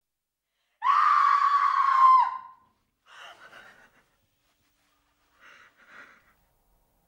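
A woman's scream, held at one high pitch for about a second and a half before breaking off. Quieter sobbing gasps follow twice.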